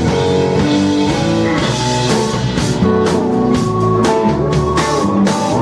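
Live rock band playing an instrumental passage: guitars and a drum kit, with no singing.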